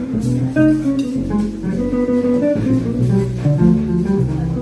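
Swing jazz on an archtop guitar and a plucked upright double bass: guitar chords and single notes over a moving bass line.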